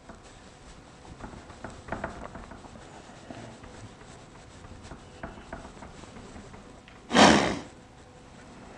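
A whiteboard being wiped clean, with faint uneven rubbing strokes and small scrapes. About seven seconds in, a short loud rush of noise lasting about half a second.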